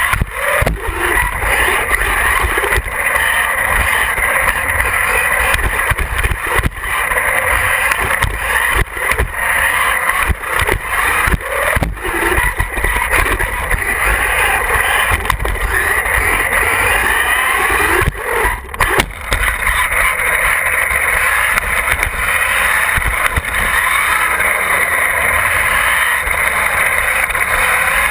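Onboard sound of a radio-controlled monster truck driving: its motor and gears whine, rising and falling in pitch with the throttle, over a steady rumble of wind and vibration on the body-mounted camera's microphone. Frequent short knocks and rattles come from the chassis bouncing over the surface.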